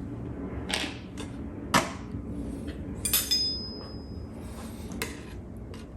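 Utensils knocking and clinking against dishes as food is served onto a plate: a few separate knocks, one ringing clink about three seconds in that rings on for more than a second. A steady low hum runs underneath.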